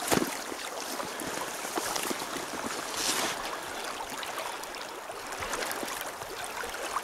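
Shallow river current rushing and babbling steadily around the wading angler, with a short knock right at the start and a brief louder rush about three seconds in.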